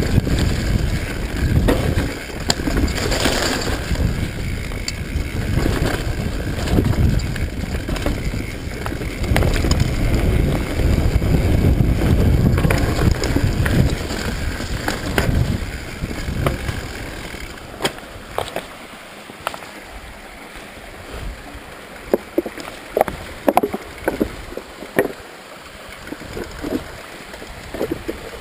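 Mountain bike descending a dirt singletrack: tyres rumbling over the ground with wind on the microphone and the rattle of the bike. About two-thirds through the rumble drops as the bike slows, leaving a string of sharp knocks and rattles.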